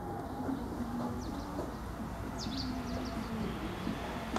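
Pigeons or doves cooing in short repeated phrases, with a few brief high chirps from small birds, over a steady low rumble.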